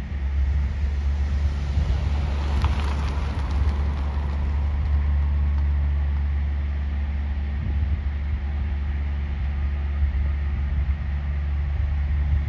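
A light propeller aircraft's engine passing, swelling about two seconds in and falling in pitch as it goes by, over a steady low wind rumble on the microphone.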